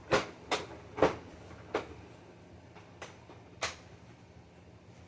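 Six or so sharp clacks and knocks, loudest in the first second and with one more near the four-second mark, as the hard plastic parts of an upright vacuum cleaner are handled; the motor is not running.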